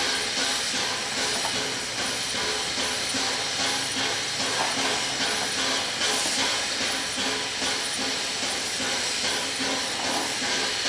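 Steam hissing steadily from the standing Peppercorn A1 Pacific steam locomotive 60163 Tornado, with a faint steady hum underneath.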